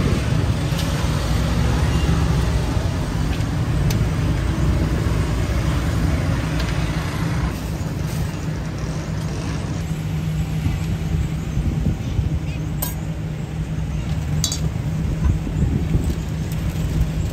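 Roadside street-food stall ambience: a steady traffic rumble under background voices, with a couple of sharp clinks about two-thirds of the way in.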